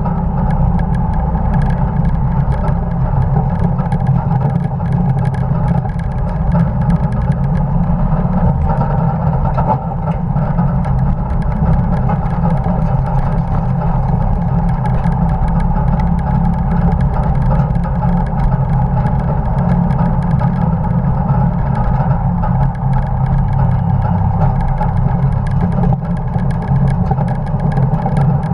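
A 1950 Dodge pickup truck's engine running steadily under load at racing speed, with no let-up.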